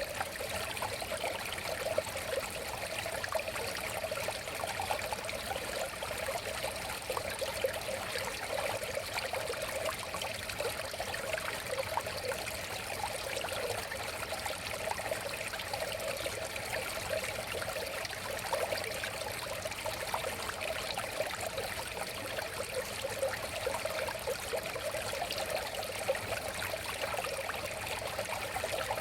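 River water flowing and babbling steadily, an even rushing with a burbling mid-range.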